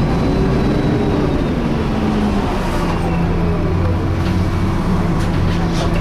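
MAN A22 single-deck bus with a Wright Meridian body, heard from inside the saloon: its engine and the loud cooling-fan whine known as 'hoovering' give a steady drone. One tone falls in pitch over the first two seconds or so, then the drone holds level.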